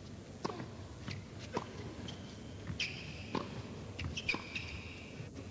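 Tennis rally: a serve, then sharp racket strikes and ball bounces about once a second, with sneakers squeaking on the court as the players move, two squeaks held a little over half a second.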